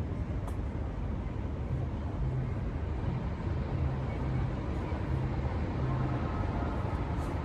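Steady low rumble of vehicle and road noise, with no change.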